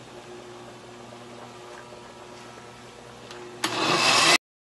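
Oster countertop blender switched on about three and a half seconds in, its motor starting up loud and growing louder as it grinds boiled tomatoes and onion, then the sound cuts off suddenly less than a second later. Before it, only a faint steady hum.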